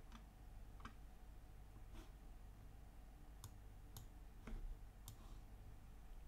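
Faint, scattered clicks of a computer mouse over quiet room tone, several of them spread a second or so apart.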